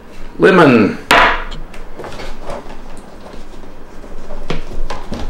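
Small glass essential-oil bottles handled in their cardboard box insert: one sharp knock about a second in, then a few light clicks and taps near the end.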